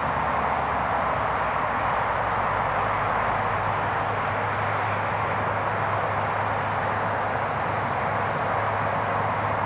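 G class diesel-electric locomotive running slowly at the head of a container freight train, a steady low engine hum under an even hiss. A faint high whine slides down in pitch over the first few seconds.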